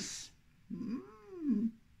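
One drawn-out vocal call, about a second long, that rises and then falls in pitch.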